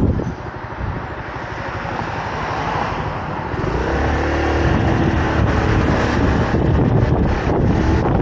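Motorcycle engine running at low speed through a turn, its pulsing clear for a few seconds while the wind noise drops away. About halfway through the engine note rises as the bike pulls away, and wind rushing over the microphone builds up again.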